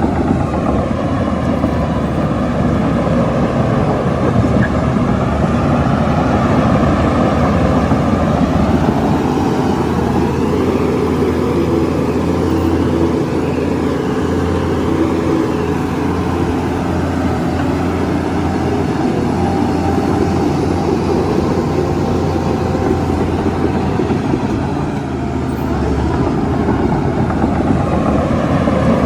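Shantui bulldozer's diesel engine running steadily and loud, easing off briefly near the end.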